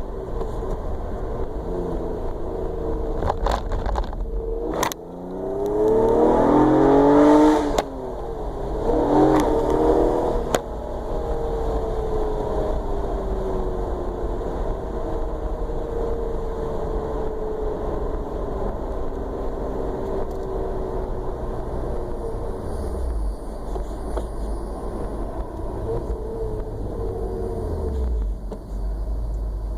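A motor vehicle engine running, revved up twice about a quarter and a third of the way in, the first rev the loudest, then settling back to a steady run.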